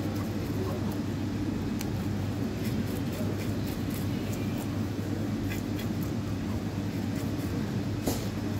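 Steady low machine hum, with a few faint scratchy strokes of a knife scraping the scales off a gilthead sea bream.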